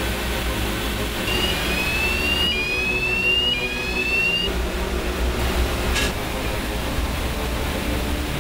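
Glass-fibre production machinery running with a steady low hum, a high whine rising in three short steps, and a single sharp click about six seconds in.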